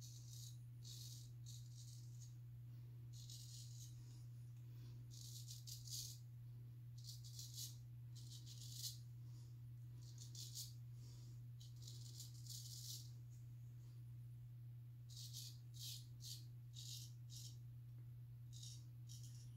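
Straight razor scraping through lathered stubble in short, irregular strokes, sometimes several in quick succession, over a steady low hum.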